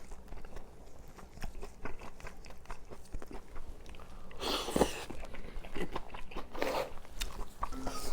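Close-up eating sounds of steamed pork kimchi being chewed: wet mouth clicks and smacks throughout. Two short, louder noisy bursts come about four and a half and six and a half seconds in.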